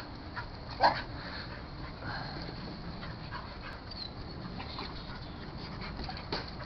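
Dogs at play: one dog gives a short, sharp yip about a second in, and another brief one near the end, over a low steady background with faint small sounds.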